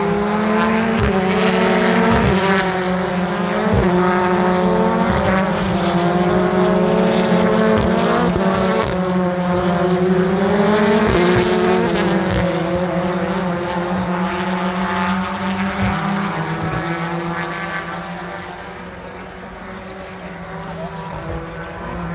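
Several racing touring cars' engines at full throttle passing on the straight, their notes climbing and dropping as they change gear. The sound fades away about seventeen seconds in, and another car is heard approaching near the end.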